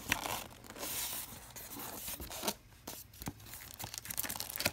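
Cardboard box and packing handled and pulled open: irregular rustling, scraping and crinkling, with a few sharp clicks.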